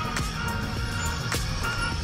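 Background music with held synth-like notes and occasional sharp beats.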